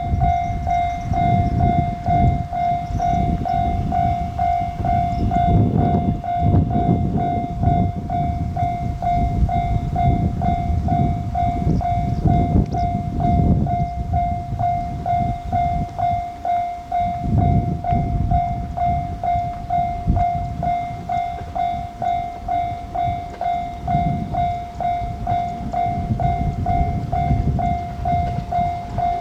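Japanese railway level-crossing bell ringing in a steady, evenly repeating clang, over the rumble of a train passing the crossing, which swells and fades several times.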